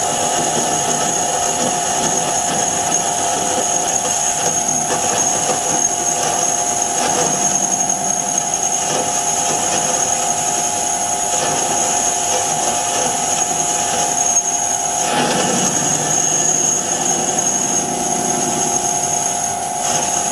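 Vintage Karger metal lathe running while a boring bar takes a heavy cut inside a spinning metal ring, chips curling off the insert: a steady machine whine over a rough cutting noise, with a brief rougher patch about fifteen seconds in.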